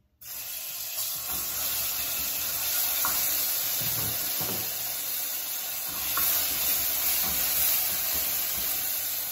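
Garlic-and-salt paste sizzling steadily in hot oil in an aluminium saucepan while a wooden spoon stirs it; the sizzle starts suddenly right at the start as the paste hits the oil.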